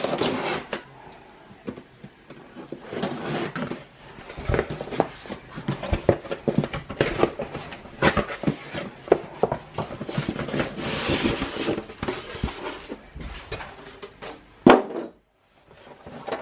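Cardboard box being opened and its packed contents handled: irregular knocks, scrapes and clatter, with a stretch of rustling about eleven seconds in and one loud knock near the end.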